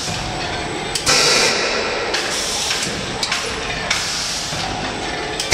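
Egg-tray moulding machine running, with a loud burst of compressed-air hiss about a second in lasting around half a second, over a steady mechanical din. Short metallic clicks and knocks from the machine's moving parts come every second or so.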